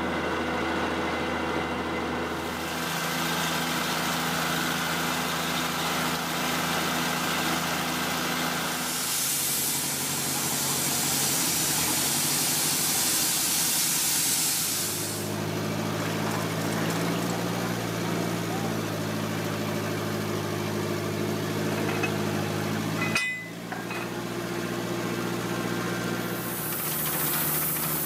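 Engines of a water-well drilling rig and its air compressor running steadily, the engine note changing a few times. A loud hiss of air and water comes in about ten seconds in for some five seconds, and again near the end.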